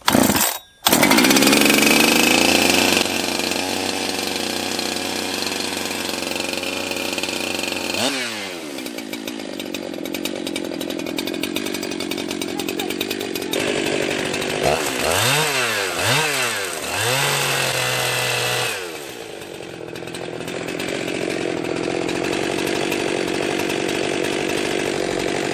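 Jonsered 2071 two-stroke chainsaw warming up after a cold start. It picks up about a second in and runs fast for several seconds, then drops to idle about eight seconds in. It is blipped up and down three times near the middle before settling back to a steady idle.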